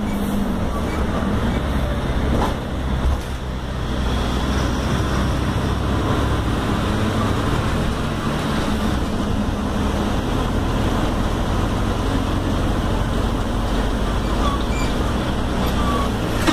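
Mercedes-Benz OF-1721L city bus under way, heard from inside: a steady low engine drone under road noise. A sharp click about two and a half seconds in.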